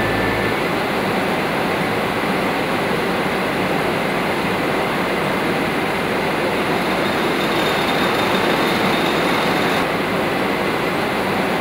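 Woollen-mill machinery running steadily, its rotating rollers and drums working blanket cloth: a continuous even mechanical rumble and hiss.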